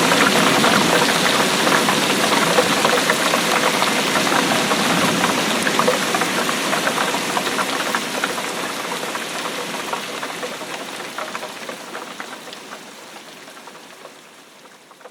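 Heavy rain falling: a dense hiss of drops with many small splats and patters, steadily fading down over the last several seconds.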